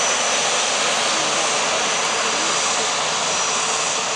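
Airbus A320-214 taxiing on its two CFM56-5B turbofans at low thrust: a steady jet rush with a thin, high whine over it.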